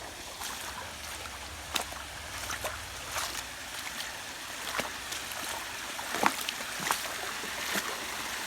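Shallow creek water running over rock, with scattered small splashes and plinks.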